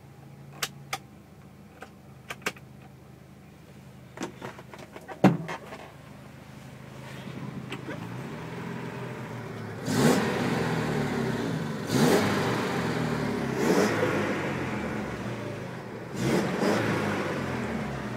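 Mazda B2000's 2-litre petrol four-cylinder engine idling steadily with a few light clicks, then revved. The revs build from about six seconds in, followed by four sharp throttle blips roughly two seconds apart, each rising and then falling back.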